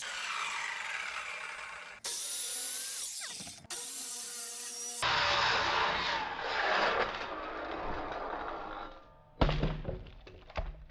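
Circular saw cutting timber, heard in several short stretches that start and stop abruptly. A heavy thump comes near the end.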